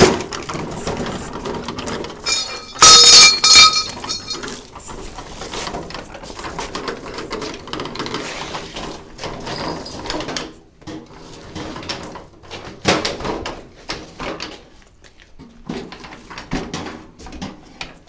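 Irregular knocks, taps and rattles of objects being handled, with one loud, short high-pitched sound in two parts about three seconds in.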